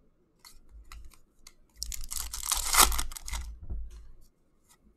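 Hockey trading cards handled and flipped through by hand: light clicks and flicks, with a louder rustle of cards sliding against each other about two seconds in.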